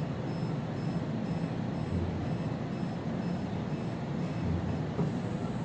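SK202 ELISA microplate reader running a plate reading: a steady mechanical hum, with a faint high whine pulsing about twice a second and a low swell about every two and a half seconds.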